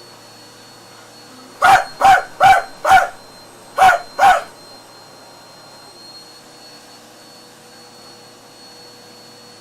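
A dog barking six times: a quick run of four barks, then two more a second later. A vacuum cleaner hums steadily underneath.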